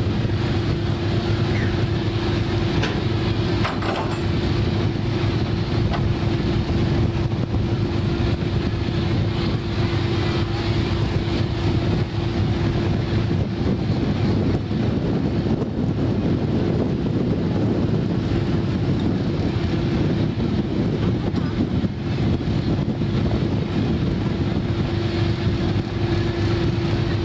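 Fishing boat's engine running steadily under way: a constant droning hum over a rushing wash of wind and water.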